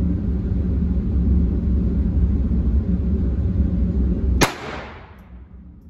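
Steady low rumble of a vehicle cabin on the move, ended about four and a half seconds in by one sharp, loud bang with a brief ringing tail, after which the rumble is gone.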